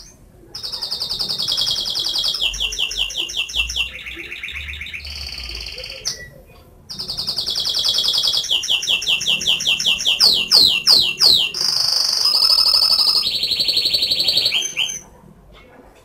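Domestic canary singing in two long phrases of rapid trilled notes, switching to a new repeated note about every second, with a short pause about six seconds in.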